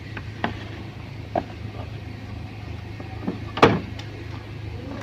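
Scattered knocks and clunks of the window air conditioner's chassis and casing as it is lifted out, the loudest a sharp knock about three and a half seconds in, over a steady low hum.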